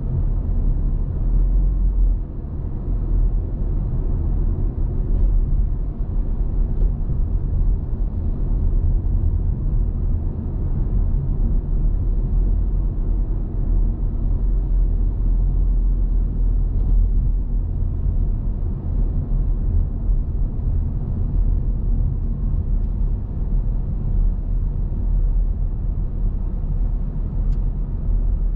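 A car driving: a steady low rumble of engine and tyres on the road, with a few faint ticks.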